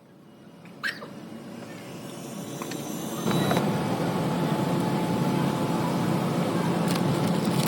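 Car moving off and picking up speed: engine and road noise build steadily, then hold at a louder, steady level from about three seconds in. A single sharp click sounds about a second in.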